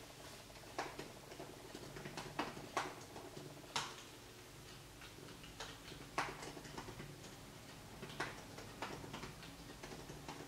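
Typing on an Apple MacBook laptop keyboard: irregular soft key clicks with a few louder keystrokes standing out.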